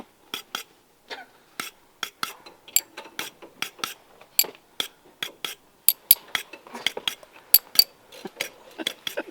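Metal hand tools and sockets clinking and clicking, a few irregular sharp clinks per second, during a leaf-spring center pin repair.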